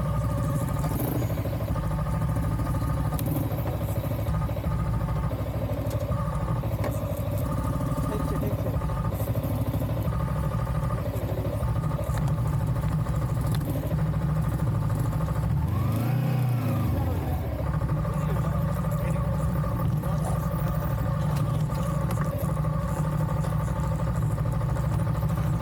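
A vehicle engine running steadily under way on a rough track. About 16 seconds in, its note briefly rises and falls.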